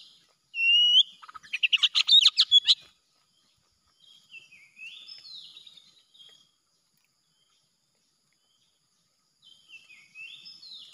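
Oriental magpie-robin (kacer) singing: a loud rising whistle, then a rapid rattling chatter of sharp notes. Quieter warbled phrases follow about four seconds in and again near the end.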